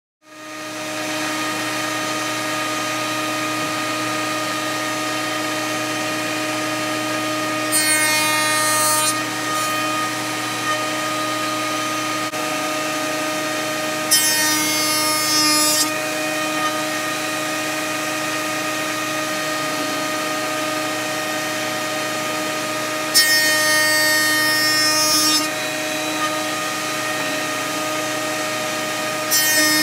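A stationary woodworking machine runs with a steady motor whine. Three times, a louder cutting noise of a second or two comes in as a board is fed through the cutter, and a fourth begins near the end.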